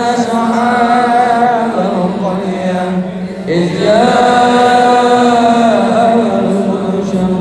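Islamic dzikir chanting: long, drawn-out melodic vocal notes. The chant dips briefly about three seconds in, then a new note slides up and is held.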